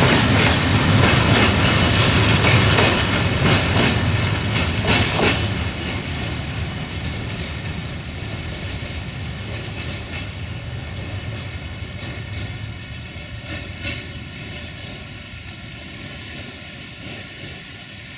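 Freight train of hopper wagons rolling past, wheels clattering over the rail joints; the clatter ends about five seconds in and the rumble then fades steadily as the train moves away.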